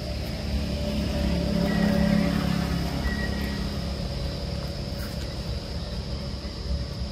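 Steady low background rumble that grows louder about a second in and eases after about three seconds, under a thin, steady high-pitched tone.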